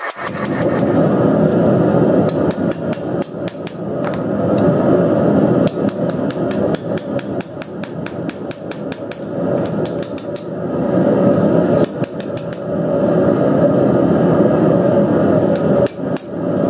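Claw hammer striking a red-hot steel cleaver blank on an anvil block in quick runs of blows, forging the blade flat. A steady low rumble runs underneath.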